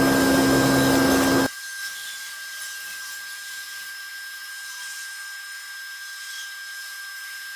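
Monorail train running: a steady whirring hum with a constant whine. It cuts off abruptly about one and a half seconds in, leaving a faint hiss with a thin steady high tone.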